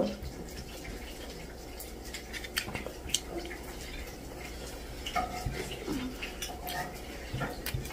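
Soft, scattered clicks and small mouth sounds of someone eating with her fingers from a plate, over a low steady room hum, with faint voices in the background.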